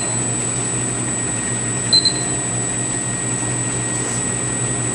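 Commercial batch ice cream freezer running steadily with a low mechanical hum while its dasher extrudes the finished ice cream out of the chute. A digital timer gives a short beep about two seconds in as it is switched off.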